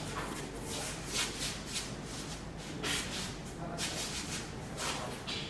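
Shuffling and rustling of a plush panda costume as its wearer moves about: a run of short, irregular brushing sounds of fabric and footsteps.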